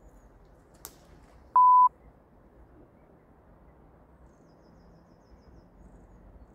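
A single short electronic beep: one steady pure tone about a third of a second long, about one and a half seconds in, with a sharp click just before it. Otherwise only faint outdoor background noise.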